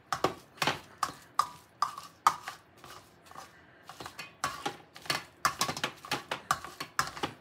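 Wire potato masher pressing down through hard-boiled eggs and knocking on a stainless steel bowl, a quick run of sharp knocks about two or three a second. The strokes ease off for about a second around three seconds in, then pick up again.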